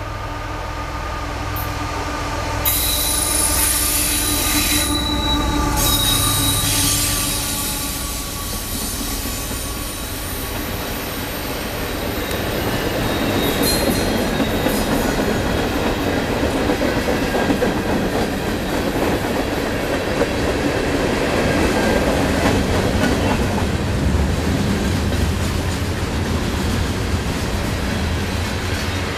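GE diesel freight locomotives run past at close range, with a high-pitched wheel squeal on the curve a few seconds in. Then a long string of freight cars, including tank cars and coil cars loaded with steel coils, rolls by with a steady rumble and wheel clatter over the rail joints.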